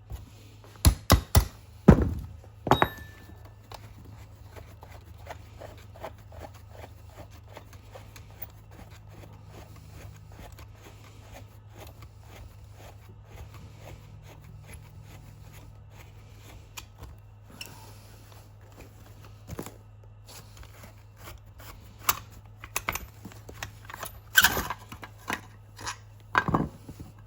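Sharp knocks and clunks of tools and metal parts being handled while taking apart an armrest: a quick cluster at the start and another near the end, with faint clicking between them over a steady low hum.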